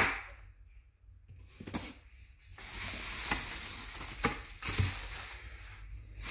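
A sharp knock at the very start, then from about two and a half seconds in, crinkling and rustling of bubble wrap around plastic brake caliper covers being handled, with a few light knocks.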